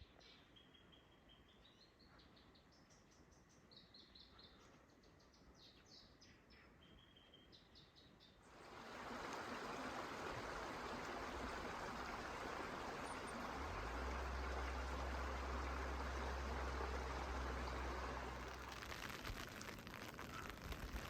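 Faint songbird chirping in short, repeated phrases. About eight seconds in, a sudden cut to the steady rush of a stream or waterfall, with a low rumble joining for a few seconds in the middle.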